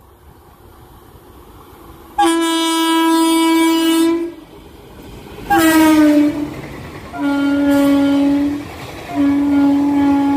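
Electric locomotive air horns sounding four loud blasts over the rumble of an express train running through at speed. The first is long, about two seconds in; the second drops in pitch as the locomotive passes; then come two lower-pitched blasts while the coaches rush by.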